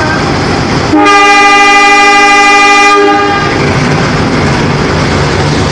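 A CC201 diesel-electric locomotive (GE U18C) sounds one horn blast of about two seconds, starting about a second in, as the train gets ready to pull out. The locomotive's engine runs on underneath as a steady low rumble.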